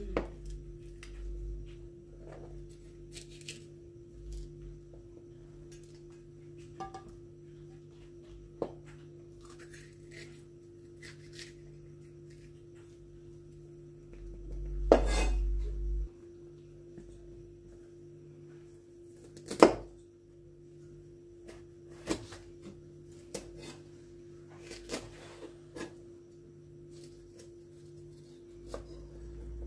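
Kitchen knife tapping and scraping on a cutting board as red peppers are sliced and deseeded: scattered light clicks, with two sharper knocks about 15 and 20 seconds in.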